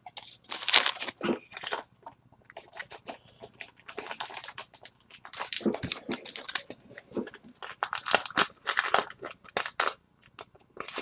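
Clear plastic card case and plastic sleeve being handled: irregular crinkling and rustling with light plastic clicks as a trading card is fitted into a hard slide box, dying away near the end.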